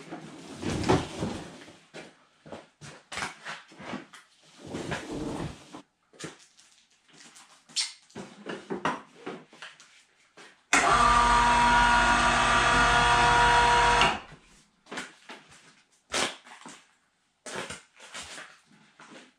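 Electric winch on a snowmobile storage lift running steadily for about three seconds, a loud, even motor hum that starts and stops abruptly, driving the lift's carrier arms up or down. Before and after it come scattered clunks and scrapes of the sled and lift being handled.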